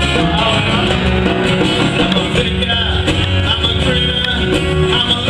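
Live band playing loud music: guitars over a bass line and a steady drum beat.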